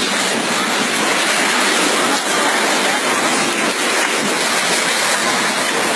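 Steady rushing noise of liquefied mud and water flowing across the ground during earthquake-triggered liquefaction.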